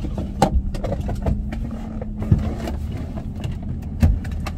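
Car cabin noise: a steady low hum and rumble, with several light knocks and clicks from inside the car.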